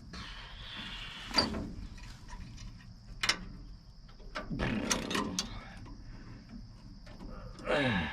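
Intermittent metallic clicks, clinks and rattles from wrapping wire and fitting hose clamps around a broken steering tie rod on a swather, with two sharp clicks and a brief clatter in the middle. Crickets chirp steadily underneath.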